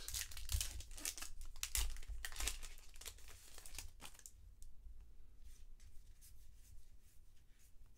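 Baseball trading cards sliding and scraping against each other as a stack is flipped through by hand. A dense run of quick scrapes and flicks over the first few seconds thins out to scattered light clicks.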